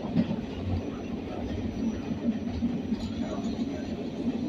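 R46 subway car running along the track, heard from inside the car: a steady rumble of wheels on the rails with light irregular clatter.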